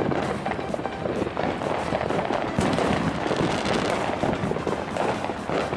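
Fireworks going off in a dense, continuous crackle of many small pops.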